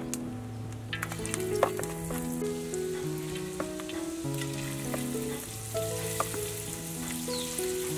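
Batter-coated eggplant strips deep-frying in hot oil, with a steady sizzle that begins about a second in and a few sharp clicks. Soft background music plays under the sizzle.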